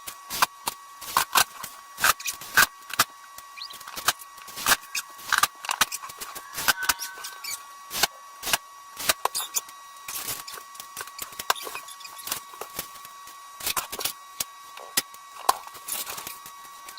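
Irregular series of sharp clicks and light taps, a few every second, over a faint steady high-pitched tone.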